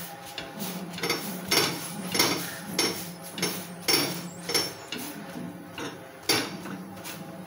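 A metal tawa knocking and clattering on the stove in a steady series of short knocks, nearly two a second, as a phulka on it is pressed down again and again with a wadded cloth to make it puff.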